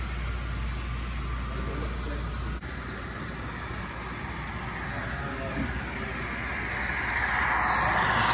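Model freight train running along the layout track, the wheels rolling on the rails in a steady noise that grows louder over the last second or so as the cars pass close by. A low steady hum cuts off abruptly about two and a half seconds in.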